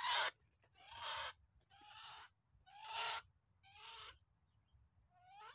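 Barred rail (tikling) calls played from a lure speaker: six harsh, raspy calls about one a second, each starting with a quick rising note. The last call is weaker.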